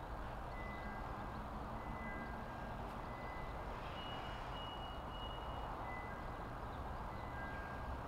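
Outdoor nature ambience: a steady rushing noise with faint, thin, high notes that recur about once a second, switching between two pitches and moving to a higher one midway.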